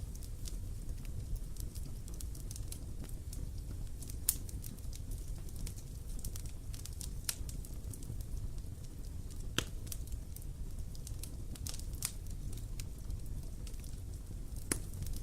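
Bonfire of burning wood crackling, with sharp pops every second or two over a steady low rumble.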